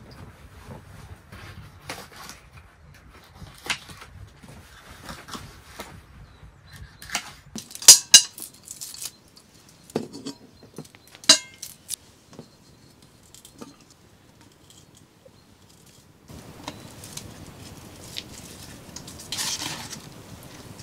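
Cooking preparation sounds: scattered clicks and knocks of utensils, with two loud ringing metallic clanks about 8 and 11 seconds in as a metal pot and its lid are handled, and a rustle near the end as raw meat is put into the pot.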